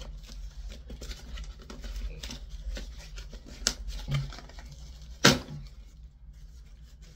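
A knife cutting and prying at product packaging: scraping, crinkling and small clicks, with a sharp crack about five seconds in as the packaging is forced.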